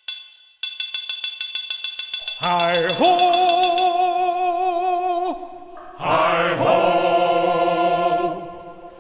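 Bright metallic chimes ring, then break into a quick run of repeated strikes. From about two and a half seconds in, a male chorus sings, with a short break near the middle.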